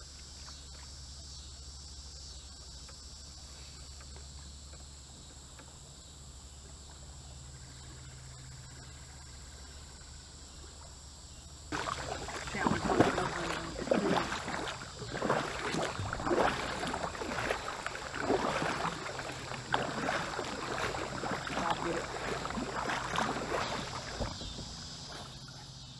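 Kayak paddle strokes splashing in the water, roughly one a second, starting about halfway through after a stretch of quiet. A steady high insect drone, like crickets, runs underneath.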